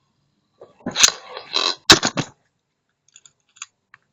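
Beyblade spinning tops clashing and scraping against each other in a box, with a run of sharp clicks and knocks about a second in and the loudest hit near two seconds, then a few faint ticks.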